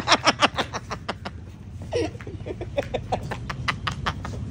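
People laughing in quick rapid bursts, with a short voiced sound about two seconds in, over a steady low hum.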